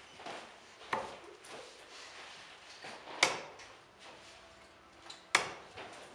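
Three steel-tip darts thudding one after another into a Bulls Focus II bristle dartboard, about a second in, after about three seconds and after about five; the last two hits are the loudest.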